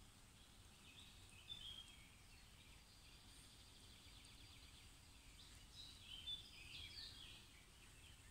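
Faint songbirds singing in near quiet, a few short phrases about a second in and again past the middle.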